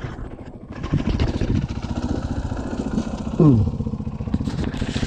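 KTM 500 dirt bike's single-cylinder engine running steadily at low speed. About three and a half seconds in, a short loud call slides down in pitch over the engine.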